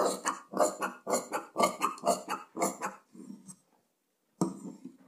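Large tailor's scissors cutting through folded net fabric, the blades closing in a steady run of crisp snips about two a second, with a short pause a little past halfway before the cutting starts again.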